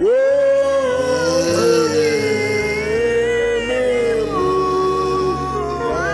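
Slow music: a voice enters with a gliding, held melody over sustained low notes.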